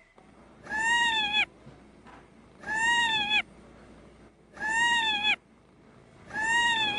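A cat meowing four times, evenly spaced about two seconds apart, each meow the same length and pitch, rising slightly and then falling away.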